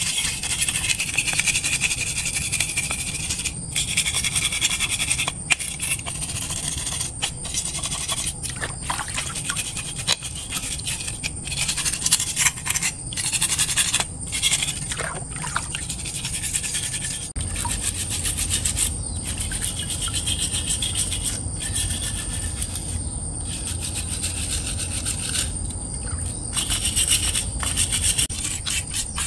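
Wire brush scrubbing a wet metal part over a basin of water, in quick back-and-forth strokes with brief pauses.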